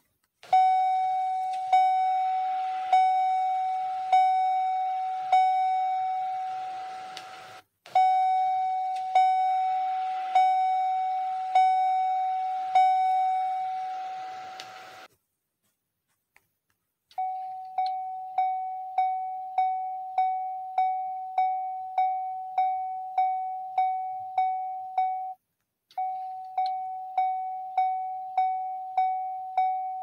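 General Motors (GMC) vehicle warning chime, the door-open bong: repeated single dings on one pitch, each fading, about one every 1.2 s in two runs. After a pause of about two seconds comes a faster chime pattern, nearly two dings a second, briefly broken once near the end.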